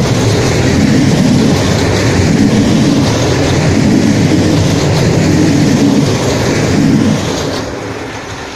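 Loaded freight wagons rolling past close by, a loud steady rumble of wheels on rail with some clickety-clack. About seven seconds in the end of the train passes and the sound fades away.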